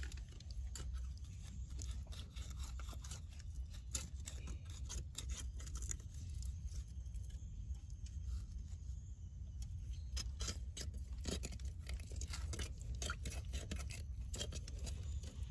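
Hand and arm working in a flooded crab burrow in soft mud: irregular wet squelches, splashes and small clicks, over a low steady rumble.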